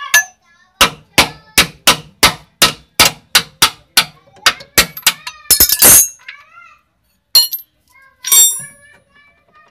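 Hammer striking the bolt of a 1999 Hyundai Starex's lower suspension arm, a steady run of sharp metal-on-metal blows about three a second, then a few heavier hits near the end, the last one ringing, driving the bolt out of the arm.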